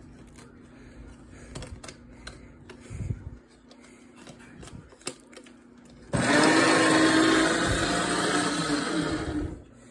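Electric paper shredder switching on about six seconds in and running for about three and a half seconds as it shreds a bus pass, then stopping. Before it come only a few faint handling clicks.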